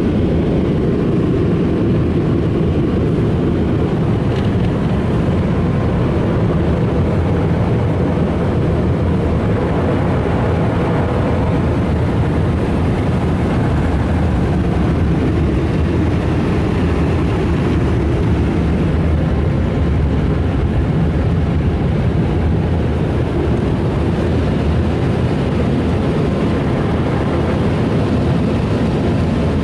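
Ryko Softgloss Maxx rollover car wash machine running over the car, a loud, steady rushing noise with no breaks, heard from inside the car.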